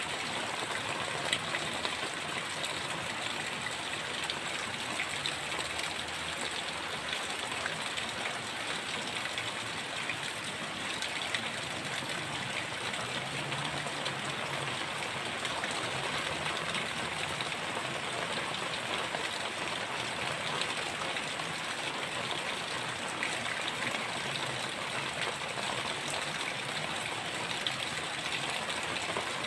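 Heavy rain falling steadily: a dense, even hiss with scattered sharp drop ticks.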